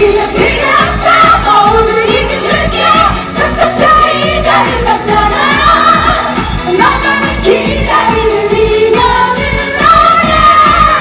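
A female singer singing a fast Korean pop song live over a full band with a steady driving beat.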